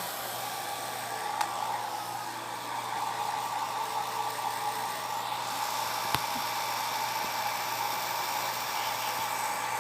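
Handheld hair dryer blowing steadily while drying hair, an even rush of air with a steady whine. A short sharp tick about six seconds in.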